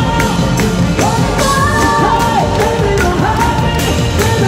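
Live band playing with drums keeping a steady beat, horns including saxophone and trombone, and a singer.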